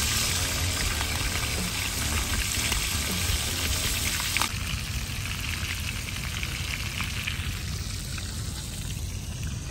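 Small whole fish sizzling in hot oil in a frying pan, a dense crackling hiss that turns quieter about halfway through.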